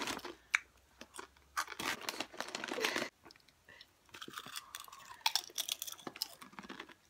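Doritos tortilla chips crunching as they are bitten and chewed, with crinkling of the chip bag: irregular crisp snaps and rustles.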